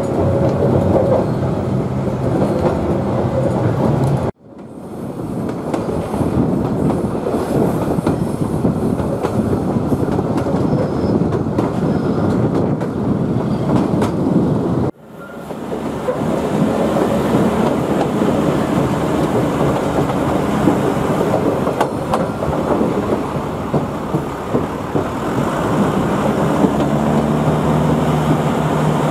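Queensland Rail 2000 class diesel rail motor running along the line, heard from on board: a steady engine hum mixed with the rumble of wheels on the rails. The sound drops out suddenly twice, about four and fifteen seconds in, and then builds back up.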